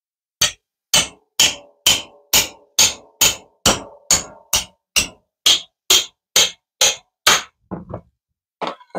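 A hammer striking the back of a kitchen knife blade about twice a second, driving the knife down through a whole Seminole pumpkin to split it. The blows are sharp and clanging, about sixteen in a steady run, then a few lighter taps near the end as the pumpkin falls apart into halves.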